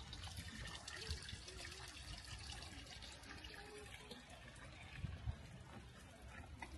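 Water trickling steadily, a soft, even splashing hiss.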